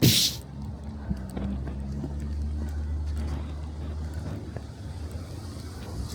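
A short, loud hiss of air at the very start, then a bus's engine running steadily with a low drone.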